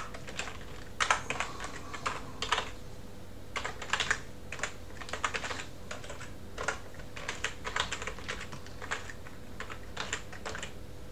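Typing on a computer keyboard: irregular bursts of keystroke clicks with short pauses between them.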